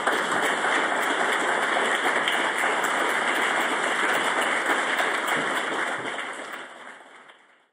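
Audience applauding, many hands clapping steadily, fading out near the end.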